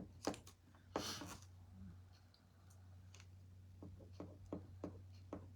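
Chalk paste being spread over a reusable stencil transfer with an applicator: a brief soft scrape about a second in, then a run of light clicks and taps near the end.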